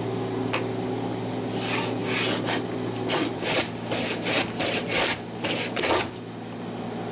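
Hand plane shaving wood along the end of a boat plank in a quick run of short strokes, starting about a second and a half in and stopping about six seconds in: cutting the plank's end down to a half lap (the geralds).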